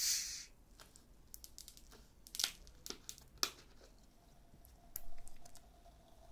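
Light crinkling with three sharp clicks about half a second apart, then a short burst of hiss about five seconds in.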